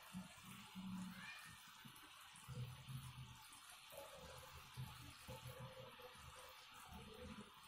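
Sugar syrup boiling hard in a non-stick kadai, a faint steady bubbling and fizzing. The syrup is still cooking toward the one-string stage.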